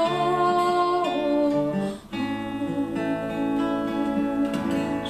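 Acoustic guitar closing out a song: a held sung note over strummed chords ends about a second in, then a final strummed chord about two seconds in is left ringing and slowly fades.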